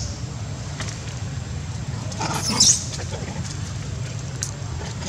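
A macaque gives a short, high-pitched squeal about two and a half seconds in, over a steady low rumble.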